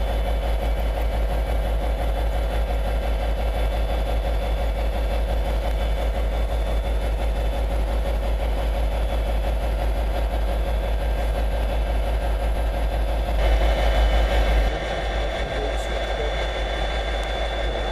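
Class 57 diesel locomotive's EMD two-stroke V12 engine idling at a standstill, with a steady low throb. It grows briefly louder and brighter about three-quarters of the way through, then settles.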